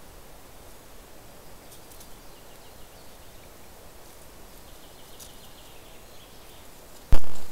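Faint outdoor background with scattered high bird chirps, then a single sudden loud thump about seven seconds in that dies away quickly.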